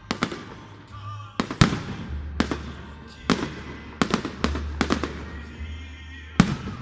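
Fireworks display: a rapid, irregular series of sharp bangs and cracks from bursting shells, about a dozen, several coming in quick pairs, the loudest about a second and a half in and again near the end.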